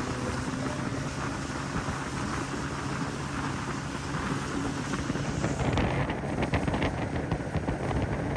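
Wind buffeting the microphone over the steady hum of a CraigCat's outboard motor as the boat runs under way.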